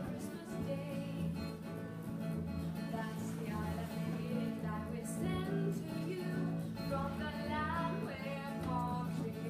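Live acoustic ensemble music: acoustic guitar and cello with women singing, and a long low note held underneath the melody.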